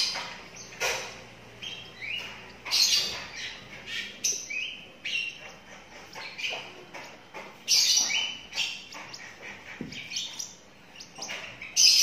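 Twelve-day-old lovebird chick calling in a series of short, high chirps at uneven intervals, some rising in pitch, with the loudest about three seconds in and near the end.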